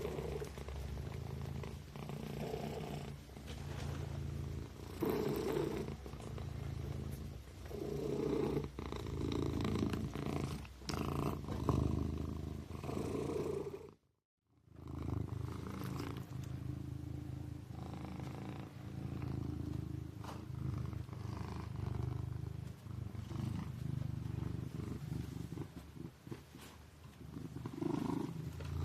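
Sleeping kitten purring steadily, the purr swelling and easing every couple of seconds. The sound cuts out completely for about half a second midway.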